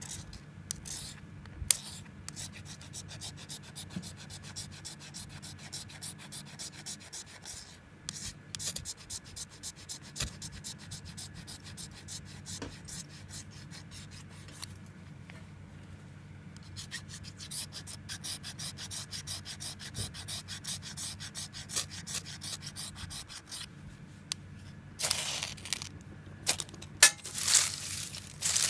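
Rapid, rhythmic rasping strokes of a blade working firewood, easing off briefly about halfway through and coming louder near the end.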